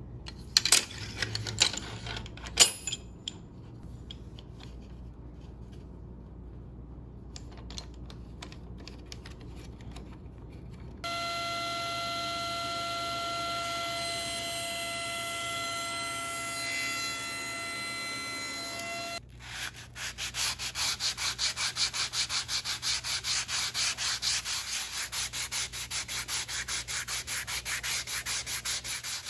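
A few sharp clicks of metal and plastic as an angle gauge is set against a table saw blade. Then the table saw runs with a steady whine for about eight seconds. After a cut, mahogany is hand-sanded with sandpaper in quick, even back-and-forth strokes.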